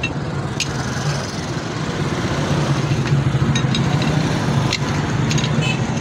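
A steady low engine hum, with a few light metallic clicks from a steel rod set against a truck wheel hub's lock nut.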